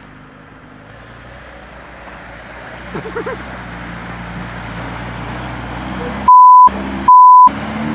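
Lada Niva engine running and growing louder as it drives through muddy water, with water splashing around the wheels. Near the end, two loud censor bleeps, each under half a second, blank out all other sound.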